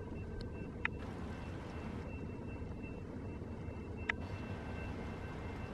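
Railroad grade-crossing warning bell ringing, two steady high tones, over a steady low rumble. There are two sharp clicks, about one second in and about four seconds in.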